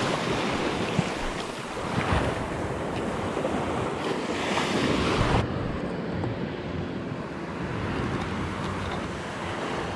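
Surf breaking and washing up the sand, with wind buffeting the microphone. About halfway through, the sound turns suddenly duller, with less hiss.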